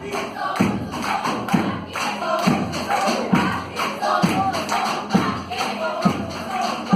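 Choir singing a song over a steady beat, a low drum thump about once a second, with light percussion.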